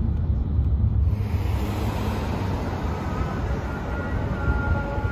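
Road noise from inside a moving car, a steady low rumble, which gives way about a second in to the broader, even traffic noise of a city street.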